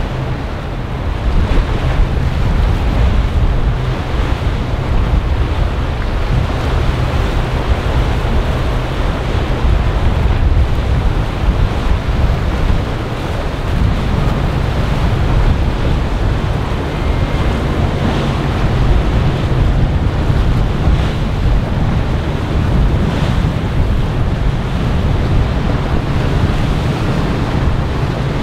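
Wind buffeting the microphone over the wash of waves and a large motor yacht's wake, with the low, steady drone of the yacht's engines underneath.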